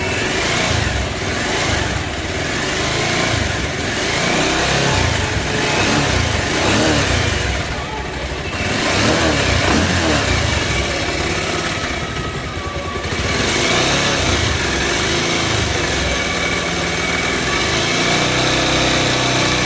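Bajaj Pulsar 220's single-cylinder engine running, its revs rising and falling several times.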